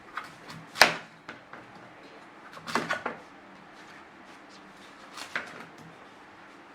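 A knife chopping into a hard pumpkin: a few sharp knocks, the loudest about a second in, a pair near three seconds and a lighter one past five seconds.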